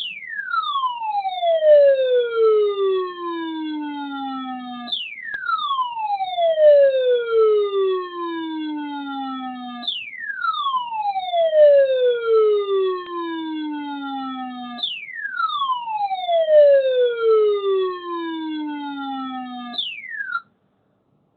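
Electronic siren tone that jumps up sharply and then slides slowly down in pitch, repeating about every five seconds, four times over, and cutting off suddenly near the end.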